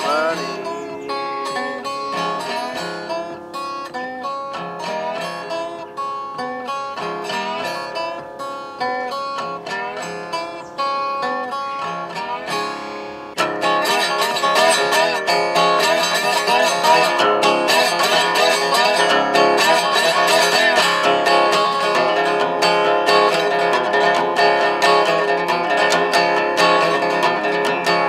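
Resonator guitar playing an instrumental passage, picked notes and chords. About halfway through it suddenly turns louder and fuller.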